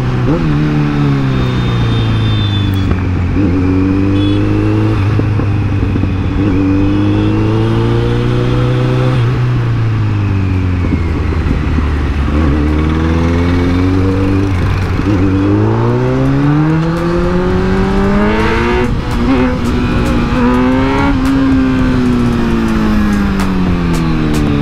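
Kawasaki Z900's inline-four engine under way, its note rising and falling with the throttle. It drops off in the first few seconds, holds low, sinks lowest about halfway, then climbs under acceleration before easing down again near the end.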